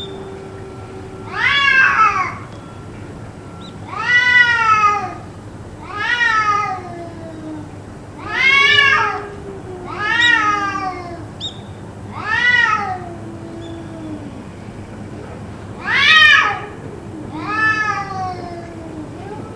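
A cat yowling over and over: eight drawn-out meows about two seconds apart, each rising then falling in pitch, with a longer pause before the last two.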